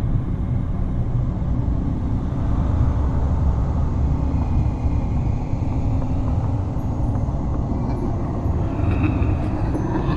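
Steady low rumble of a spooky horror ambience bed, with faint higher tones entering near the end.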